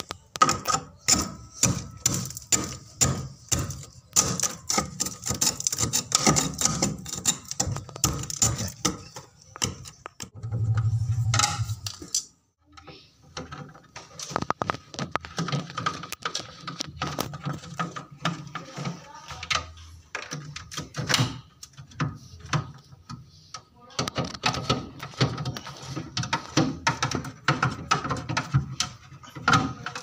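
A steel screwdriver scraping and clicking rapidly against a fridge freezer's aluminium evaporator plate, cleaning off leftover residue around the spot where it was pierced. A brief low hum comes in about eleven seconds in, followed by a short pause in the scraping.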